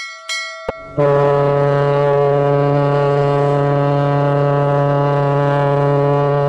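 A ship's horn sounding one long, steady, low blast, starting about a second in. It is preceded by a few brief, ringing, chime-like strikes.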